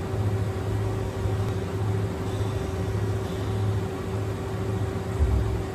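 Steady machinery hum from an automated machining cell, with a constant mid-pitched tone over a low, uneven rumble. A short low thump comes near the end.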